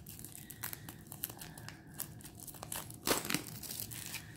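Clear plastic shrink wrap on a tarot deck box crinkling and crackling in irregular small bursts as it is cut and pulled open by hand, with a louder crackle about three seconds in.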